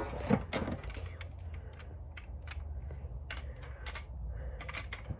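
Irregular light clicks and taps from a small diecast toy car being turned over in the hands, about a dozen scattered through a few seconds.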